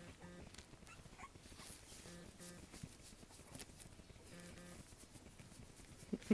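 Young French Bulldog puppies making faint short vocal sounds, a pair about every two seconds, with light clicks and taps between them.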